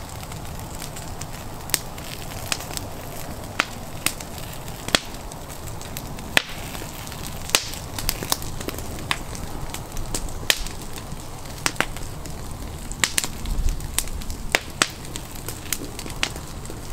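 Wood campfire crackling, with sharp pops at irregular intervals, about one a second, over a steady low rush of burning.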